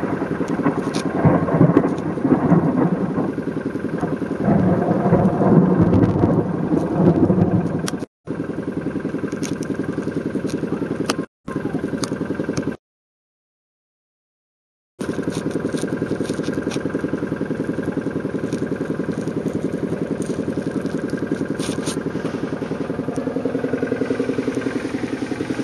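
Thunder rumbling over a vehicle engine idling steadily, with faint ticks of rain. The rumble is loudest over the first third, then only the idle remains. The sound cuts out completely twice for an instant and once for about two seconds around the middle.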